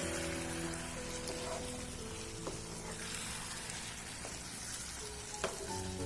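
Soft background music with held, slowly changing notes over the sizzle of chicken curry cooking in a pan. A few light clicks of a spoon against the pan as it is stirred, the sharpest one near the end.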